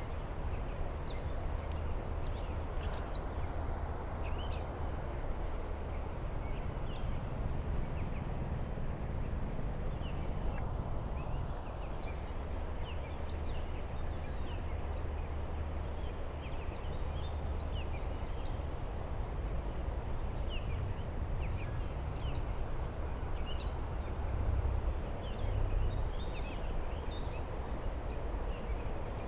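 Small birds chirping over and over, short thin calls scattered all through, over a steady low rumble outdoors.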